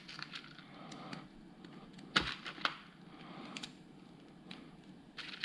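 Plastic LEGO Technic parts being handled and pressed together: a few scattered sharp clicks, the loudest about two seconds in.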